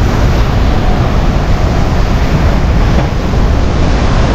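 Rhine Falls waterfall: a loud, steady rush of falling water heard up close, with wind buffeting the microphone.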